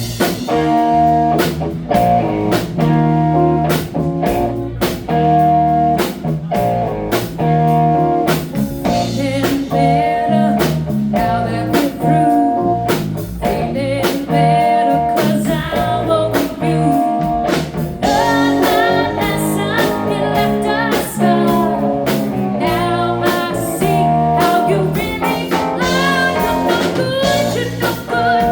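A band playing a bluesy rock song live, with guitar, a drum kit on a steady beat and a sung vocal.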